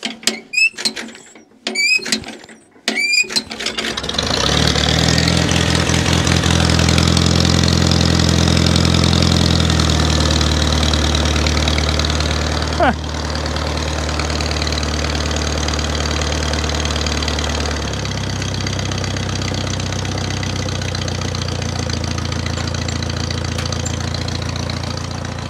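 1950 Farmall Cub's four-cylinder flathead engine turned over by hand crank, clanking a few times before it catches about three seconds in, though the carburettor was flooded and dripping. It then runs steadily and settles to a slower idle, stepping down again about 18 seconds in.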